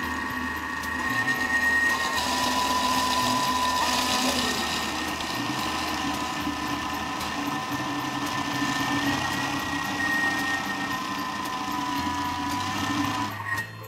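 Kitchen robot's motor running with a steady whine as its blade beats eggs into cooked sonhos dough, its pitch shifting a couple of times; the motor cuts off near the end.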